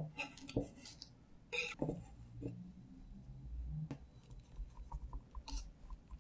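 Fingers peeling a powdered-sugar-dusted agar jelly sheet off baking paper in a baking tray and rolling it up: irregular soft scrapes, rustles and light ticks, the loudest in the first two seconds.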